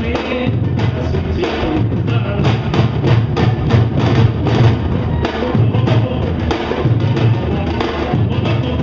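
Samba-reggae drum ensemble playing live: surdo bass drums pound a heavy repeating beat under a dense pattern of sharper repinique strokes.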